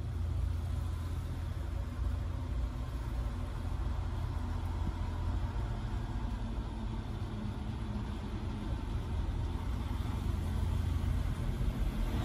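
Steady low rumble of outdoor background noise, a little louder near the end.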